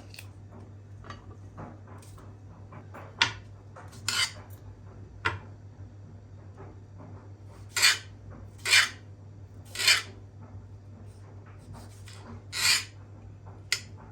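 Kitchenware being handled: a few sharp clinks and about five short scraping strokes, like a utensil against a dish, over a low steady hum.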